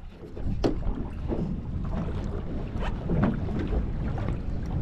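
Wind rumbling on the microphone over water lapping against the hull of a small boat at anchor, with a few short knocks.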